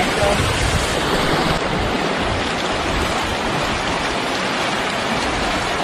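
Steady rush of water: a waterfall spattering onto rocks, then a shallow mountain stream running fast over stones. The level drops slightly about a second and a half in.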